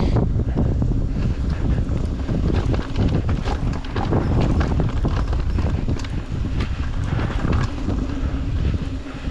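Mountain bike descending a rocky dirt singletrack: wind buffeting the microphone over the rumble of the tyres on dirt, with the bike clattering over rocks and bumps throughout.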